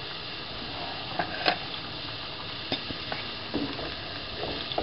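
Chicken pieces and raw diced tomatoes sizzling steadily in a nonstick frying pan, with scattered sharp clicks, and from about three and a half seconds in the knocks and scrapes of a wooden spatula stirring the food against the pan.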